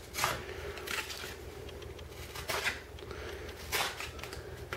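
A piece of cardboard being handled: four short, soft rustles and scrapes at uneven intervals, over a faint steady hum.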